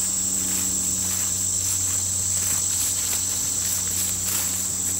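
Steady high-pitched chorus of crickets trilling without a break, with soft footsteps swishing through grass.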